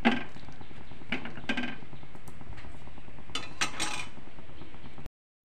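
Metal spoon clinking and scraping against a kadai while a runny curry is stirred: a few scattered clinks with a short ring, a cluster of them near the end, over a steady low background hiss. The sound cuts off suddenly just before the end.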